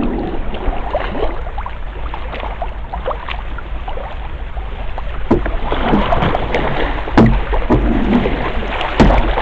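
Canoe running through choppy rapids: a steady wash of rushing, splashing water around the boat, with scattered sharp knocks that come more often in the second half, the loudest near the end.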